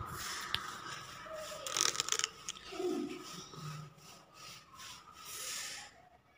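A hand hammer knocking and scraping at a wall: irregular sharp knocks, most of them bunched together about two seconds in, with rubbing and scraping between the blows.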